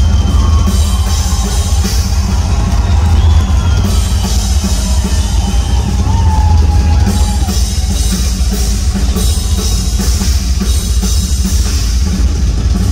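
A live rock drum solo on a full drum kit, with heavy bass drums and crashing cymbals played without a break. It is loud and boomy, heard from the arena floor.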